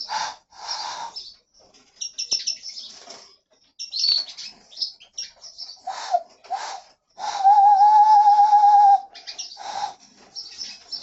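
Hand whistle blown into cupped palms: several short, breathy, airy puffs, then about seven seconds in a clear, dove-like hooting tone held for about two seconds with a slight wavering, the loudest sound here, followed by more short puffs.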